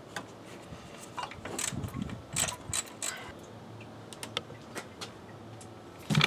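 3/8-inch-drive ratchet with a 10 mm socket on an extension, clicking in short irregular runs as the thermostat housing bolt is worked loose, with metal tools scraping. A louder knock comes near the end.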